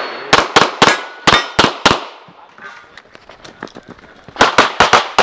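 A Brazos Custom 2011 Hybrid .40-calibre pistol firing rapid strings. There are six shots in under two seconds, a pause of about two and a half seconds, then another fast string of about five shots near the end, each with a short echo.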